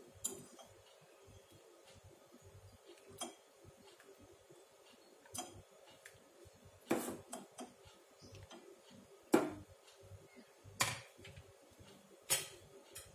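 A steel ladle clinking and scraping against a stainless steel pot and a glass bowl as thick milky kheer is ladled out: scattered clinks and knocks, the sharpest about nine seconds in.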